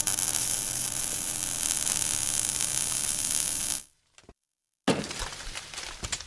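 Sound effects for a burning logo reveal. A steady fiery hiss fades out just before four seconds in, and after a short silence a sudden hit starts a run of crackling sparks.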